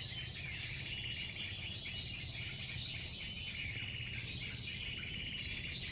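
Steady outdoor chorus of insects, with scattered small bird chirps.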